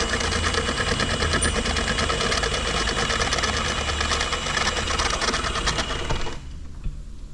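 An engine idling with a steady, fast mechanical clatter over a low rumble. It drops off sharply about six seconds in.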